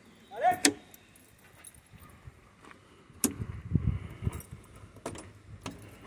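Keys jangling as the key works a Land Rover Defender's door lock mechanism, with sharp metallic clicks and a run of knocks and rattles a little past halfway. A brief gliding squeak about half a second in.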